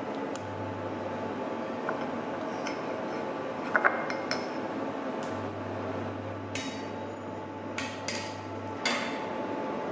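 Wire-mesh strainer ladle clinking against a steel pot and a ceramic bowl as cooked meat is lifted out and served, over a steady background hiss. The loudest clinks come about four seconds in, with another sharp one near the end.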